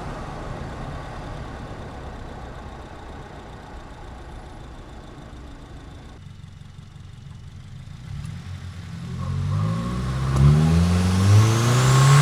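Tuned 2022 Subaru WRX's turbocharged flat-four heard through its BMS intake: running low and quiet at first, then picking up revs from about eight seconds in, the intake note rising in pitch and getting louder toward the end.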